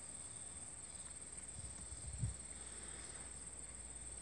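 Quiet pasture ambience: insects trilling steadily on one high pitch, with a single soft, low thump about two seconds in.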